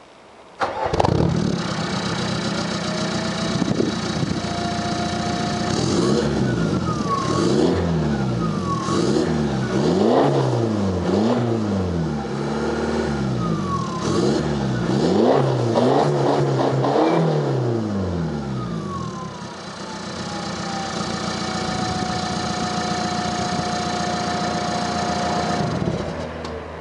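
Audi A4 1.9 TDI four-cylinder turbodiesel through a custom straight-through exhaust. It starts about a second in and idles, then is revved in a series of quick blips. As it settles back to idle, a whine falls in pitch and then holds steady.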